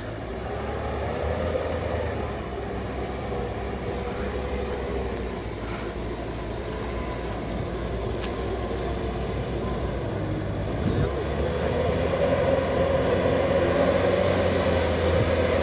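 UAZ Bukhanka van's engine running steadily under load as it wades through meltwater, growing louder over the last few seconds as the van comes closer.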